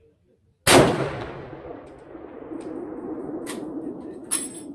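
A single shot from an unbraked .416 Ruger bolt-action rifle (Ruger M77 Hawkeye Guide Gun), a sharp, loud blast about a second in whose report trails off over several seconds. A few faint clicks follow, then a metallic clank near the end.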